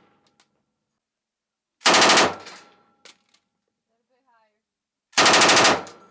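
Belt-fed machine gun firing two short automatic bursts, each about half a second long and about three seconds apart, with echo trailing off after each.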